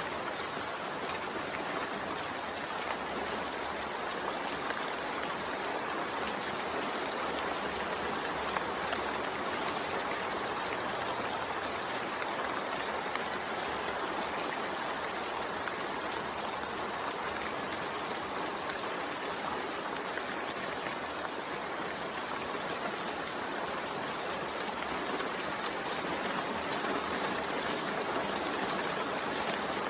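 Steady rainfall, an even hiss without pauses or distinct drops.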